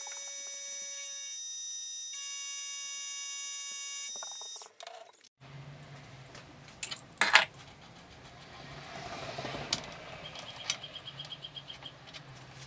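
Chiptune-style 8-bit background music, a steady square-wave chord whose notes change twice, cutting off abruptly about five seconds in. Then quiet room tone with a low hum and a few metallic clicks and knocks, the loudest a sharp knock about seven seconds in, as the aluminium block is handled in the milling vise.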